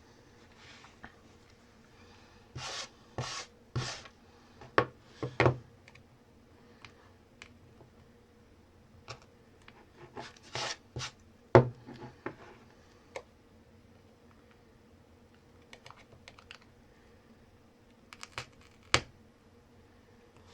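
Irregular clicks and short scrapes of a small tool picking old adhesive off the camera lens area on the back of a Samsung Galaxy S10e, with the sharpest click a little past the middle.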